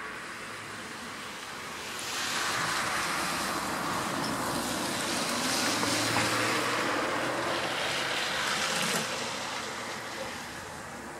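A passing road vehicle: a rushing noise that swells about two seconds in and fades again after about nine seconds, over a faint steady hum.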